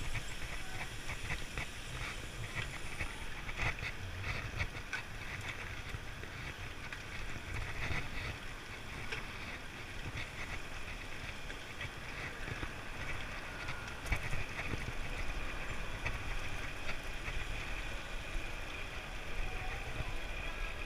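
Wind buffeting the microphone of a handlebar-mounted camera, with tyre and road noise from a road bike riding along, and scattered light clicks. A sharper knock comes about fourteen seconds in.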